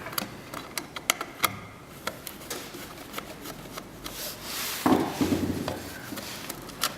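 Scattered small clicks and taps of a screwdriver working the screw terminals of the temperature control wires on a heat press motherboard, with a louder stretch of handling noise about five seconds in.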